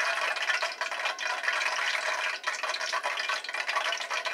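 Hot cooking oil crackling and sizzling in a frying pan, a steady dense spatter of fine pops.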